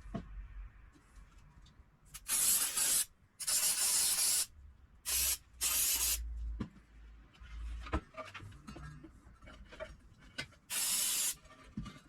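Five short bursts of hissing spray, each lasting about a half to one second, with pauses between them and a low knock or two from handling.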